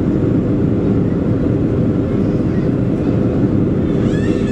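Steady cabin roar inside a Boeing 737-400 on approach, flaps extended: engine and airflow noise with a faint steady hum. A brief high-pitched voice cuts across near the end.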